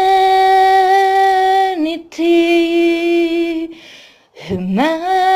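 A solo singing voice, with no accompaniment, holding long drawn-out notes on the word "Humanity". Near the end there is a short breath, then the voice slides up into the next held note.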